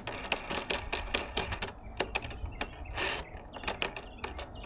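Small mounting hardware being handled and taken off: a rapid, irregular run of sharp clicks and rattles, with a brief rustle about three seconds in.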